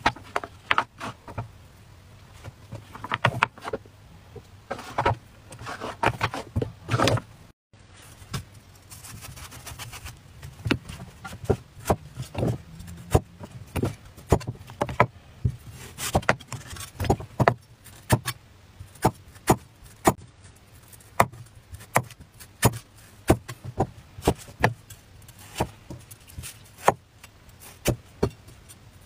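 A kitchen knife chopping on a wooden cutting board: sharp knocks of the blade striking the board as a vegetable is sliced, roughly one or two a second after a short break a few seconds in. Before the break there are clustered rustling and clattering handling noises.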